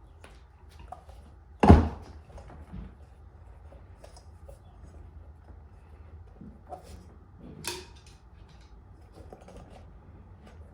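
Scattered knocks and clunks of hard objects being handled in a small room, the loudest a sharp clunk about two seconds in and another near eight seconds.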